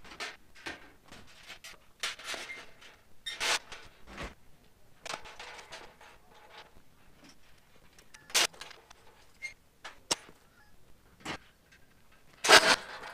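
Metal sheep hurdles clanking and rattling as they are handled and set up, in a series of separate knocks. The loudest clatter comes near the end.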